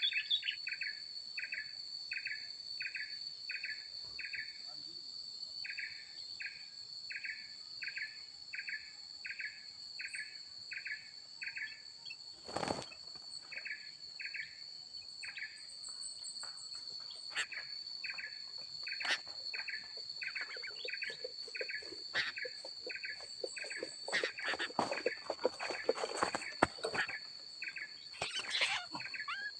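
Steady high insect drone with a rhythmic pulsing chirp, about two pulses a second, running in stretches with short breaks. Over the last several seconds, rapid scratchy bird chirps and calls grow busier.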